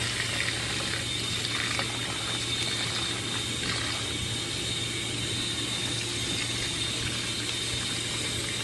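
Water running steadily into the tub of a Giantex compact portable washing machine as it fills at the start of a wash cycle, with a low hum beneath it.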